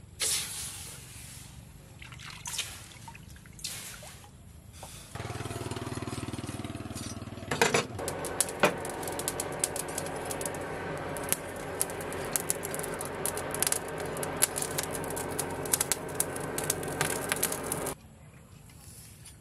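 Hot steel sickle blade quenched in a water trough, hissing in a few short bursts. From about five seconds in, a charcoal forge burns hard with a steady hum of forced air and constant crackling and popping of the coals, cutting off suddenly near the end.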